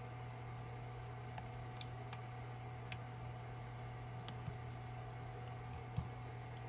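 A few light, scattered clicks and taps as a replacement bayonet mount is lined up and seated on the back of a Nikon 18-55 mm lens by hand, over a steady low hum.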